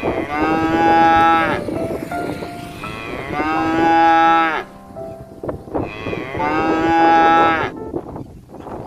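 A cow mooing three times, each long call about a second and a half, with a pause of a second or two between them.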